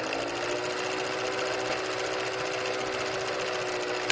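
Old film projector running: a steady, rapid mechanical clatter with a constant motor hum.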